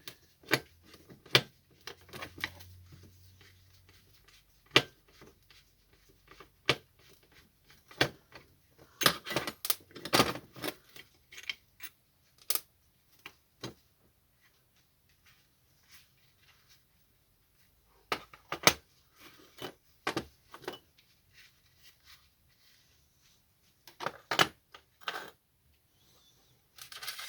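Irregular metallic clicks, clinks and knocks of hand tools and small brass and steel parts being handled while an oxy-acetylene cutting torch is taken apart, in scattered clusters with a quieter stretch in the middle.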